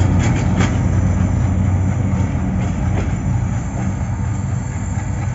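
Diesel locomotive running light and pulling away, its engine a steady low drone, with a few sharp clicks of the wheels over rail joints in the first second.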